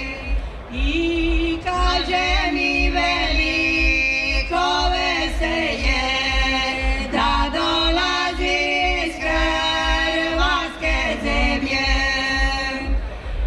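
Music: several voices singing together in harmony over a steady low beat.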